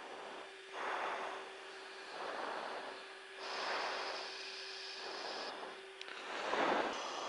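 A person breathing into a live microphone on an aircraft intercom: four slow breaths over steady radio hiss, with a faint steady hum that stops about six seconds in.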